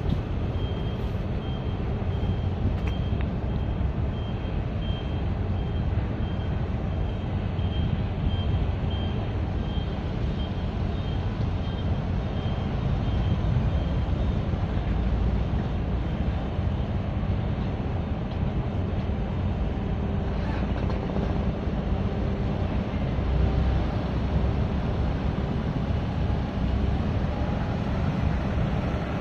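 Steady, low heavy-engine rumble, with a vehicle's reversing beeper sounding about twice a second for the first dozen seconds, then stopping.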